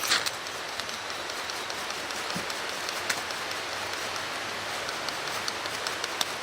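Mountain stream water flowing in a steady rush, with a sharp tap at the start and a few faint clicks later.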